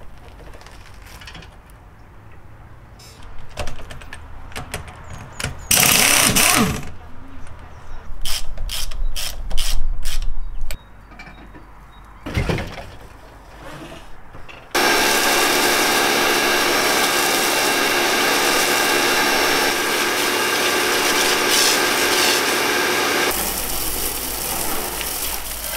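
Hand tools working on a van's wheel nuts: ratcheting clicks and rattles, with a few short loud bursts. About halfway through, a loud steady spray of water from a hose gun washing down the van takes over.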